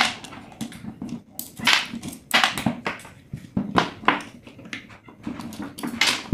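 Screwdriver working on a stand fan's electric motor as it is taken apart: irregular metallic scrapes, clicks and knocks of the tool against the motor housing and its end cover.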